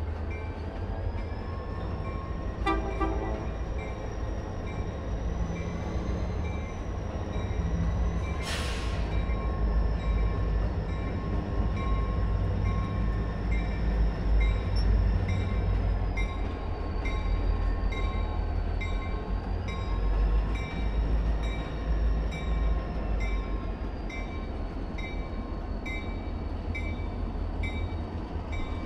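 A freight consist of Union Pacific EMD diesel locomotives, among them an SD40N, running past with a steady low engine rumble as the train rolls through the yard. A short hiss comes about eight and a half seconds in.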